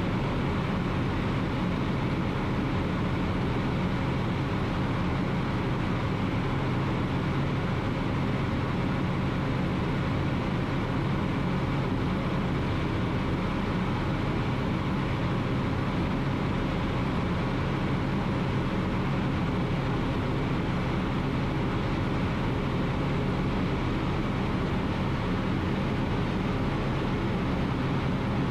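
Ultralight aircraft engine and propeller running steadily in flight, a constant even drone with no change in pitch.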